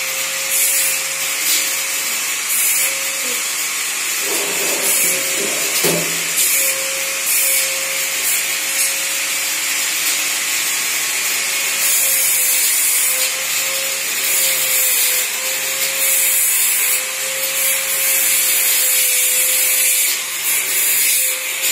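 Steady machine whir with a constant hum-like tone underneath. A brief clatter comes about five to six seconds in.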